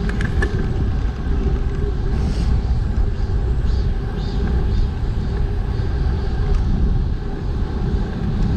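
Wind buffeting the microphone of a GoPro Hero7 action camera while riding a bicycle at speed, a steady low rumble with road and tyre noise underneath.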